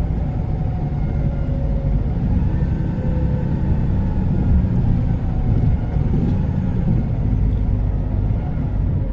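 Cab interior sound of a T360 concrete agitator truck on the move: a steady low engine and road rumble.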